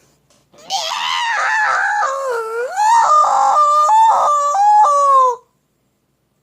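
A long, high-pitched wailing cry, wavering and stepping up and down in pitch. It starts about a second in and breaks off after roughly four and a half seconds.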